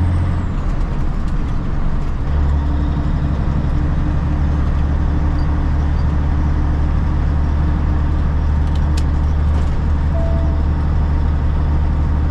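Semi truck's diesel engine pulling under way, heard from inside the cab: a steady low drone over road noise. The engine note changes in the first two seconds, then holds steady.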